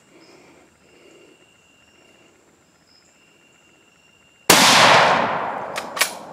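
A single rifle shot at a feral hog about four and a half seconds in, very loud, its report rolling away over more than a second. A few sharp clicks follow near the end, and faint steady high-pitched insect tones sound before the shot.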